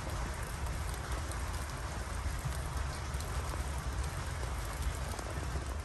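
Steady rain falling, with many small drop hits ticking through an even hiss.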